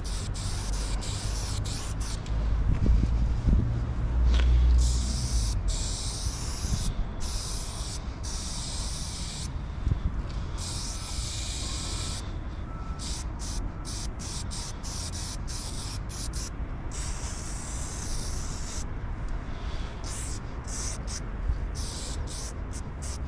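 Aerosol spray-paint can hissing in repeated bursts as paint is sprayed onto a wall: longer sprays first, then many short quick taps of the nozzle. A low rumble runs underneath, loudest a few seconds in.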